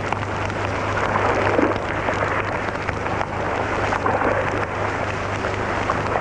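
Campfire crackling and hissing steadily, over a constant low hum.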